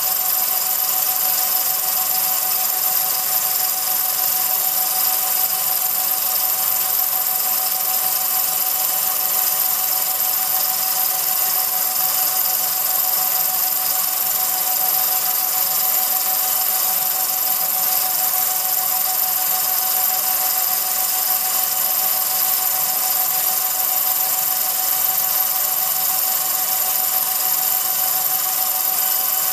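Film projector running: a steady mechanical whir with constant high-pitched whines and no change in speed.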